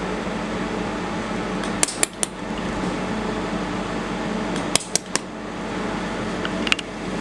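Steady machine hum from a fiber laser welding machine, with sharp clicks in three short clusters: three about two seconds in, three about five seconds in, and one near the end.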